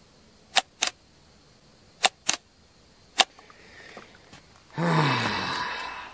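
Chainsaw throttle trigger clicking as it is squeezed and released, several times, mostly in quick pairs. Near the end a louder breathy sound with a falling low tone lasts about a second.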